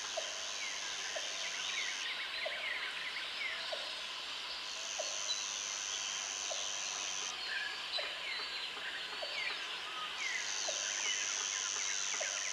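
Forest ambience: a dense chorus of bird calls, over which a high insect buzz comes in three stretches of about two and a half seconds, with a short low click repeating about once a second.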